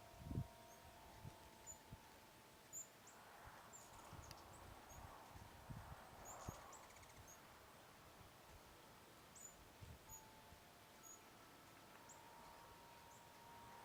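Hummingbirds at a sugar-water feeder giving short, very high chip calls, scattered singly and in quick pairs throughout, with a few soft low thumps.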